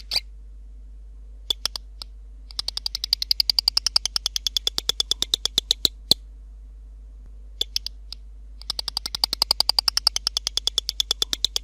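A lizard's call: a few separate sharp clicks, then a long rapid run of clicks at about ten a second lasting some three seconds. After a pause of about two seconds the run repeats. A faint steady hum lies underneath.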